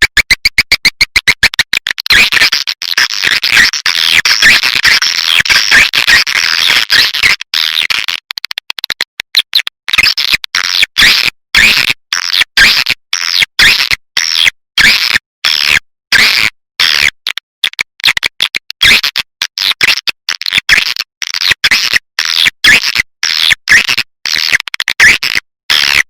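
Swiftlet caller recording: swiftlet chirping and twittering played as a lure to draw swiftlets to a nesting house. It opens with fast regular chirping pulses, becomes a dense continuous twitter about two seconds in, and from about eight seconds on breaks into short chirping bursts with brief gaps, two or three a second.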